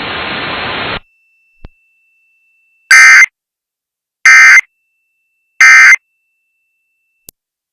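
Radio hiss that cuts off about a second in, then three short, harsh Emergency Alert System data bursts about 1.3 s apart: the end-of-message code that closes the alert.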